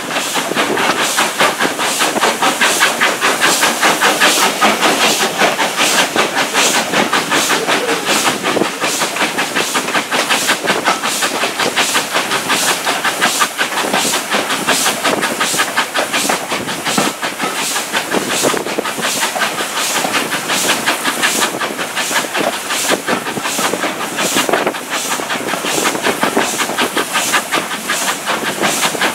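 Steam-hauled heritage train under way: steady hiss and running noise with regular exhaust chuffs repeating through, and wheels clicking over the rails.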